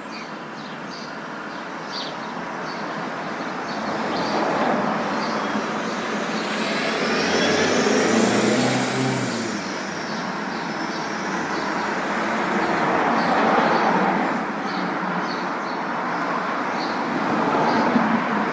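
City street traffic: a steady roar of vehicles, swelling as cars pass by about four times. In the middle, one passing vehicle rises in a high whine over a low hum.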